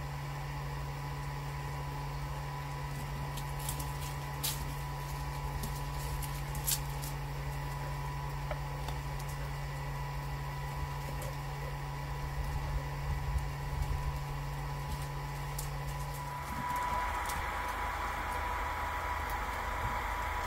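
Steady hum of a small electric motor, most likely the bubble machine's fan, with a few sharp clicks in the first several seconds. About sixteen seconds in the hum stops and a broader rushing noise takes over.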